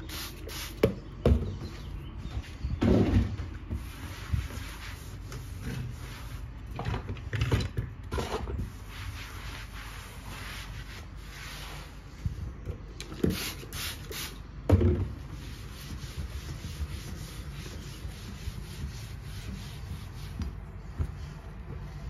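Cleaning cloth rubbing and wiping over a kitchen countertop, sink and tap, in irregular swishes. A few short knocks of handled objects stand out, the loudest about a second in, around three seconds in and near the middle.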